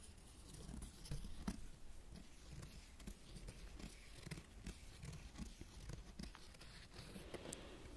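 Dry leaf crinkling and crackling as gloved fingers rub and turn it close to the microphone: faint, scattered small crackles and clicks.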